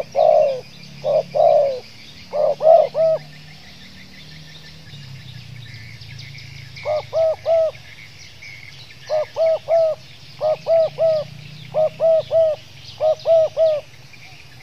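Spotted dove cooing, the notes broken into quick stuttering groups of three ('gagap' style): a few longer coos at first, a pause of several seconds, then five three-note bursts in a row. Small birds chirp faintly behind.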